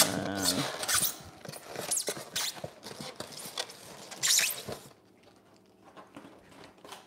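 Polystyrene foam packing shell squeaking and scraping as it is prised apart and the top half lifted off, with a short squeal at the start; the rubbing and creaking stop about five seconds in.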